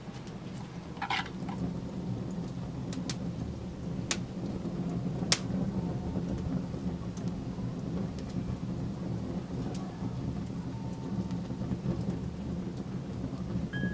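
Open wood fire or coals burning: a steady low rumble with scattered sharp crackles and pops, the loudest about five seconds in.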